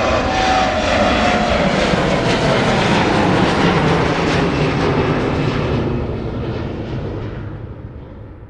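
Fixed-wing aircraft flying past: a loud engine rush with a tone that slides down in pitch as it passes, then fading away over the last few seconds.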